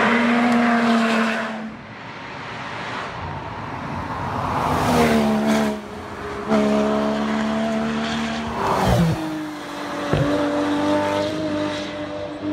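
Competition cars at speed on a tarmac rally stage: a Lotus Exige's engine running hard as it sweeps past, then a second car accelerating up through the gears, its engine note climbing and stepping with each shift, falling in pitch as it passes, with a sharp crack about ten seconds in.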